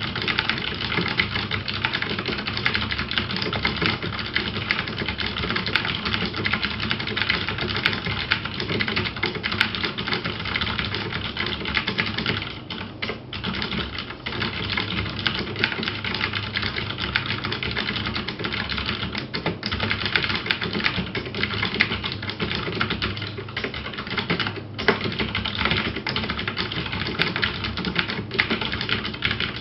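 Rapid, continuous typing on a Cherry MX 3800 mechanical keyboard with clicky Cherry MX Blue switches: a dense stream of sharp key clicks and clacks, with brief pauses about halfway through and again later.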